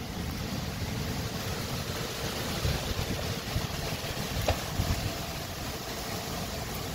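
Severe derecho thunderstorm wind blowing hard: a steady rushing hiss with irregular low rumbling buffets of wind on the phone's microphone, swelling in gusts. A brief sharp tick comes about four and a half seconds in.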